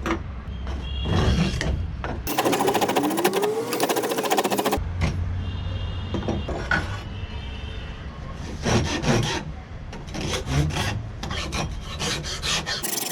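Wooden cricket bat handle being worked with a rasp or file: several bursts of quick scraping strokes with short breaks between them.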